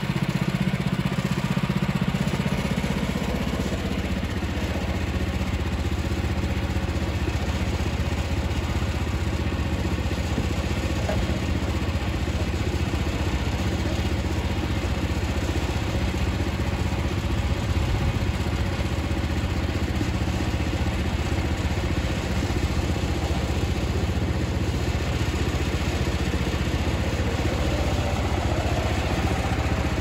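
Gasoline engine of a Woodland Mills portable bandsaw sawmill running steadily. Its note drops slightly about three seconds in.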